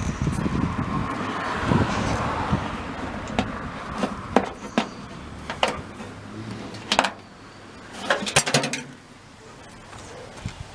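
Hands working the tail light lens, seal and housing on an early VW bus: rubbing and handling noise, then a string of sharp clicks and knocks of the parts, with a quick cluster of clicks about eight seconds in.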